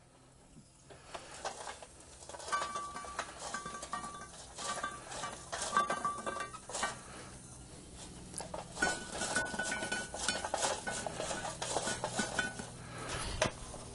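Hot charcoal briquettes tipped from a metal chimney starter and clattering onto a Lodge No. 12 cast-iron Dutch oven lid: a long run of clinks, knocks and scrapes starting about a second in, with short ringing metal tones.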